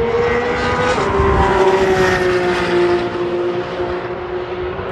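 Porsche 991 GT3's naturally aspirated flat-six pulling hard. Its pitch climbs, then drops abruptly about a second in at an upshift, and it carries on at high revs, easing slightly.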